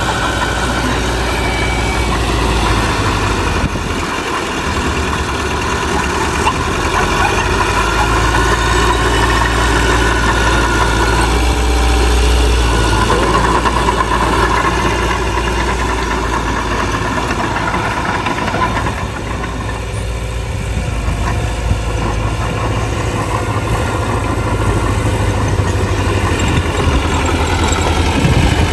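Heavy earthmoving machine's diesel engine running continuously, its pitch shifting up and down as it works, with a brief drop in level about twenty seconds in.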